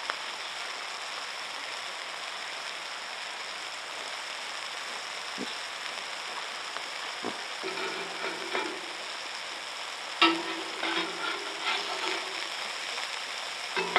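Sausage patties sizzling steadily in a frying pan. From about halfway through, a metal spatula clinks and scrapes against the pan as the patties are turned.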